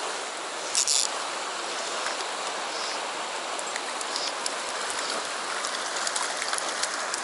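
Steady rush of a shallow, rocky mountain stream running over stones, with a brief sharp hiss about a second in and faint scattered ticks later on.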